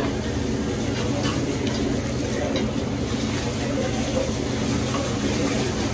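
Steady low rumble of a hibachi grill's exhaust hood fan over food sizzling on the flat-top griddle, with a few light clicks of the chef's spatula.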